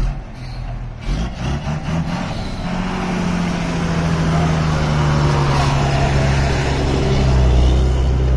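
Truck engine running with a steady note, growing louder from about a second in, with a few short knocks early on.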